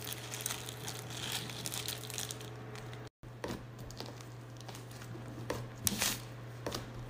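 Crinkling from a small packet of slime add-ins being emptied onto slime, then thick slime being pressed and kneaded by hand with the sprinkles worked in: soft crackling, with a few sharp clicks near the end. A brief gap of silence about three seconds in.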